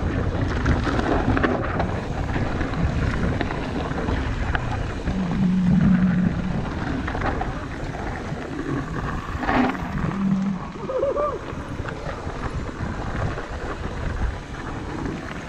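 Wind rushing over a handlebar-mounted action camera's microphone as a mountain bike rolls down a dirt singletrack, with tyre noise on the dirt and a few knocks from the bike over bumps.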